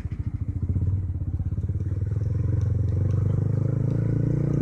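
Honda CB150R's single-cylinder four-stroke engine running at low revs, pulsing unevenly for about the first second, then pulling steadily with a slight rise in pitch.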